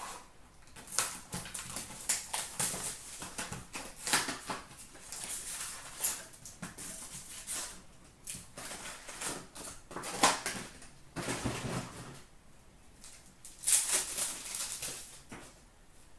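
Hockey card box and packs handled and opened by hand: cardboard and wrappers crinkling, rustling and tearing, with cards being shuffled. Irregular crackles throughout, loudest about ten and fourteen seconds in.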